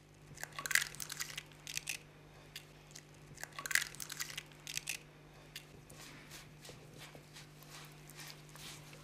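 Eggs being cracked into a well of semolina on a marble counter: a few short crunchy bursts, the loudest near the start and about four seconds in. After that comes softer scraping and rubbing as fingers work the egg into the semolina for pasta dough, over a steady low hum.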